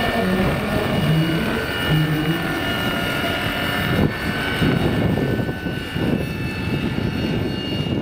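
Electric Vario Schweizer 300C scale model helicopter (Kontronik electric drive, 2.2 m rotor) flying, with a steady high whine from its motor and gearing over the whoosh of the rotor. In the second half, gusts of wind buffet the microphone.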